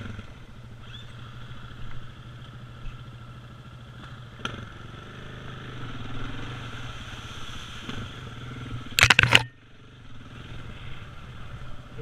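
KTM 690's single-cylinder engine running at low, steady revs as the bike is ridden slowly through a shallow river. About nine seconds in comes a loud burst of noise lasting about half a second.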